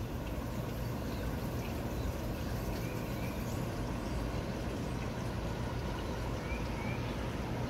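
Steady outdoor background rumble and hiss, with a small bird giving a short pair of rising chirps twice, a few seconds apart.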